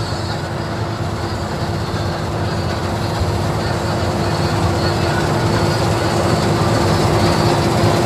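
Bakhsish 930 combine harvester cutting standing wheat: its engine and threshing machinery run with a steady mechanical hum and one held tone, growing gradually louder as the machine comes closer.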